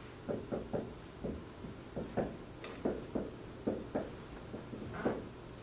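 Marker writing on a whiteboard: a quick run of short, irregular strokes and taps as words are written out by hand.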